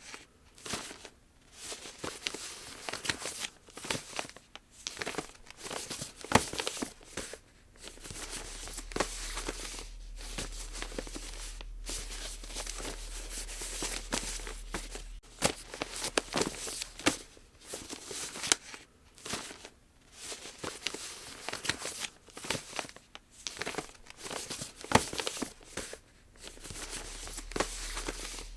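Origami paper being folded and creased by hand: irregular crinkling and rustling, with short sharp strokes as the folds are pressed down.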